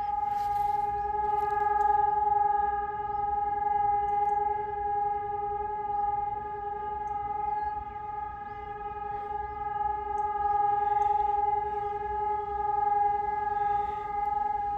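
Sonus HES 600 electronic civil-defence sirens sounding a steady continuous tone that holds one pitch without rising or falling: the German all-clear (Entwarnung) signal.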